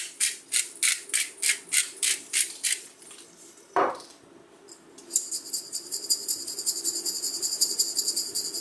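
Salt and pepper being added by hand to a pan of sauce: quick, even rasping strokes about four a second, stopping a little under three seconds in. A single knock follows about a second later, and from about five seconds in a steady high hiss with a fast flutter sets in.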